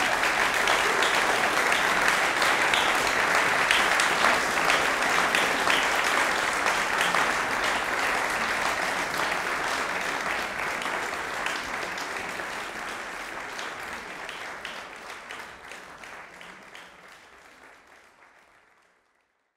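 Audience applauding: dense, steady clapping that gradually fades away over the last several seconds.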